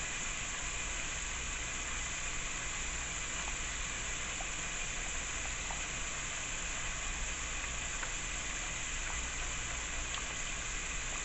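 Steady sizzling hiss of buffalo-wing sauce cooking in a pan on the stove, with a few faint clicks.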